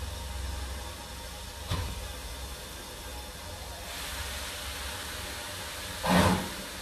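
Class 2MT steam locomotive drifting slowly toward the listener with steam hissing over a low rumble. A sharp beat comes about two seconds in and a loud exhaust chuff near the end.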